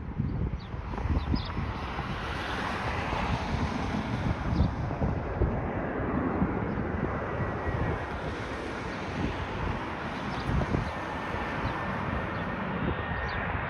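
Jet airliner on final approach, its engine noise rising in the first second and then holding, with wind buffeting the microphone. A thin steady engine whine comes in near the end.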